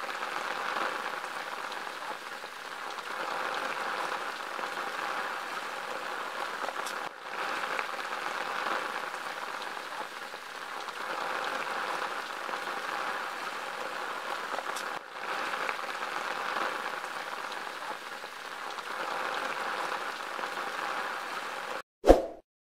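Steady heavy monsoon rain, an even hiss of falling drops that drops out briefly twice. Near the end the rain cuts off and a single short, sharp sound follows.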